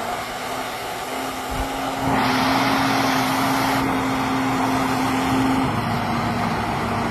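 Tractor engine running steadily, getting louder and harsher about two seconds in.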